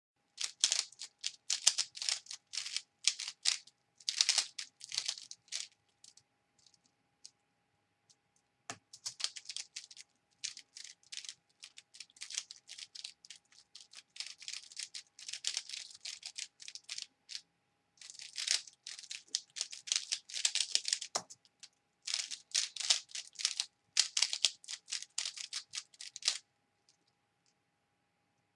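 Plastic 3x3 speedcube being turned by hand: quick runs of clicks and clacks from the layers turning, in bursts with short pauses. Two low knocks, about nine and twenty-one seconds in, as the solve timer is started and stopped.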